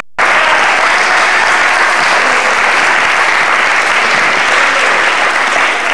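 Audience applauding steadily; the clapping starts abruptly just after the beginning.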